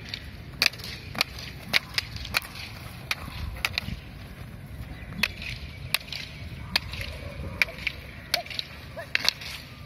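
Silambam fighting staffs clacking against each other in sparring: sharp, irregular wooden cracks, roughly one or two a second, with a quick flurry of three strikes near the end.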